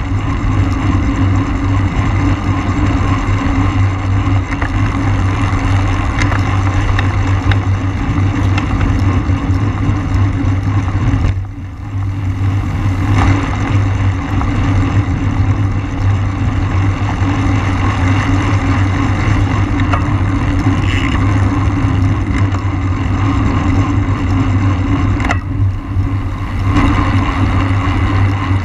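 Steady wind rush buffeting a bike-mounted camera's microphone as the bicycle rides at race speed, with a low rumble. The noise thins out briefly twice, about a third of the way in and again near the end.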